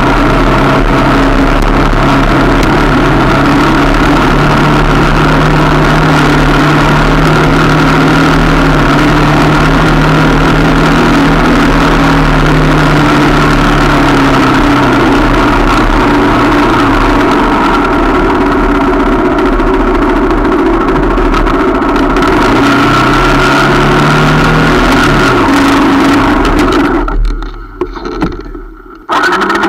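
125 cc motorcycle engine running steadily while riding a dirt track, with wind rush. The engine note drops about halfway through and picks up again. Near the end, the sound goes muffled and drops away for about two seconds as the bike rides through a puddle and muddy water splashes over the camera.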